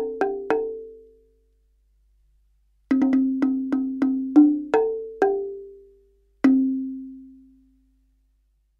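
A short music jingle of quick, evenly spaced struck percussion notes that each die away fast. One run of notes ends about half a second in, a second run starts about three seconds in, and one last note about six and a half seconds in rings out slowly.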